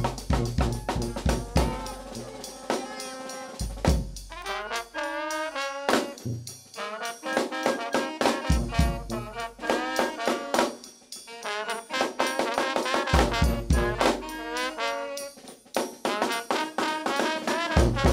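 New Orleans brass band playing live: trumpet, trombone and saxophone lines over sousaphone bass, with snare and bass drum.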